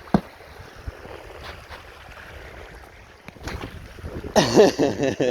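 A sharp knock at the start, then rough outdoor noise. From about three and a half seconds in comes a man's wordless straining and gasping, loudest near the end, as he clambers over a creek-bank ledge.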